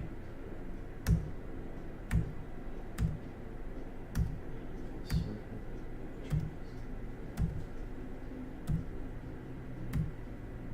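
Finger taps on computer controls while working slide software, about nine in all, roughly one a second and unevenly spaced. Each tap has a dull thump.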